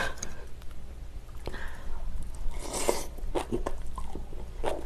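Close-miked eating: sharp clicks of chopsticks and a spoon against a ceramic bowl, and a mouthful of rice and kimchi bitten and chewed with light crunching.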